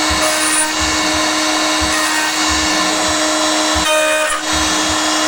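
CNC router spindle at 19,000 rpm milling mild steel with a 5 mm two-flute carbide endmill: a steady high cutting whine over a harsh hiss, changing briefly about four seconds in, with soft low pulses underneath.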